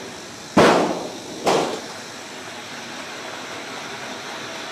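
Puff-making machinery (pola cutter and masala mixer drum) running with a steady noise. Two sudden loud bursts of noise stand out above it, about half a second and a second and a half in, the first longer and louder.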